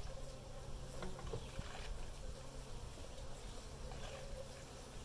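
Honey bees buzzing as they fly in and out of a hive entrance: a steady, slightly wavering hum, over a low rumble.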